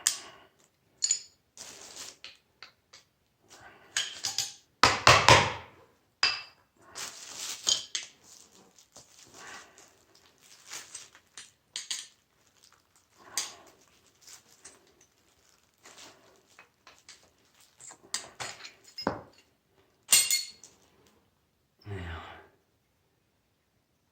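Metal parts of a door closer being handled and knocked while it is taken apart: scattered clinks and clunks, with the loudest knocks about five seconds in.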